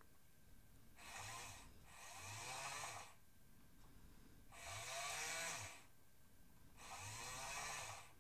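Toy excavator's small electric motor whirring in four short runs as it moves the digger bucket, each run rising and then falling in pitch.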